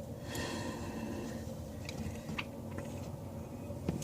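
A few faint clicks and scrapes of a basin wrench being worked onto a tap's nut, over a low steady hum.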